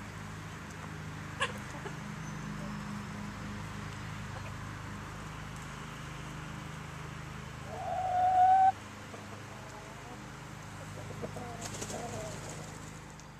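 Backyard chickens calling: one loud, drawn-out squawk rising slightly in pitch about eight seconds in, then a few short, softer clucks near the end, over a steady low hum.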